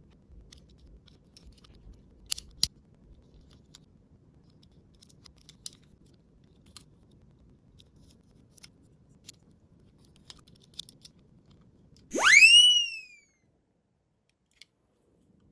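Scattered light clicks and taps, two sharper ones about two and a half seconds in; about twelve seconds in, a whistle sound effect sweeps sharply up in pitch and dips slightly as it ends, about a second long.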